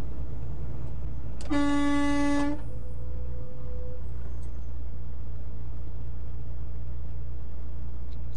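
A single horn blast about a second long, honked as another tractor-trailer cuts across in front, over the steady low drone of a semi truck's diesel engine moving slowly.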